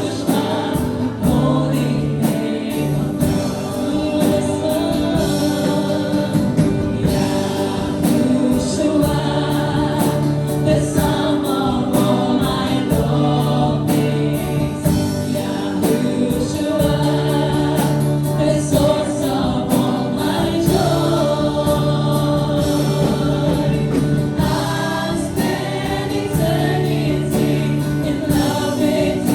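Worship team singing a Christian praise song together as a group, with musical accompaniment.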